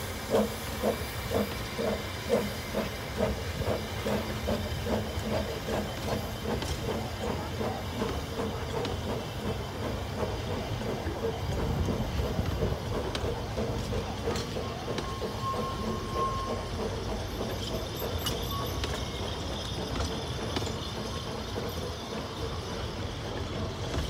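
Double Fairlie narrow-gauge steam locomotive 'Merddin Emrys' pulling away. Its exhaust beats start about two or three a second, come quicker and fade within the first several seconds, over a steady hiss of steam from the cylinders. The empty coaches then roll past with a steady rumble.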